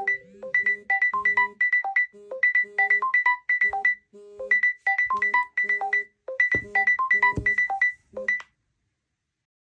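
A Samsung phone's melodic alert tone, short notes in a quick repeating pattern, stopping abruptly about eight and a half seconds in.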